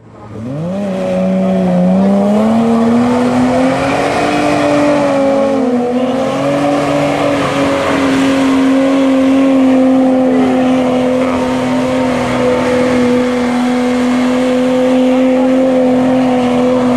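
Nissan Safari 4x4's engine revving hard while drifting on loose dirt: the engine note climbs over the first few seconds, then holds at steady high revs, over a hiss of spinning tyres in the dirt.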